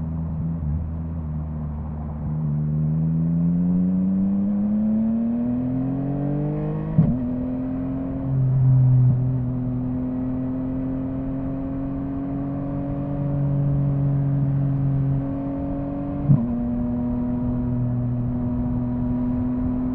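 Yamaha MT-09 inline three-cylinder engine pulling under throttle. Its pitch rises for several seconds, then it is broken twice by quick-shifter upshifts, about 7 seconds in and again about 16 seconds in, each a brief sharp snap with a dip in pitch, before the engine pulls on steadily.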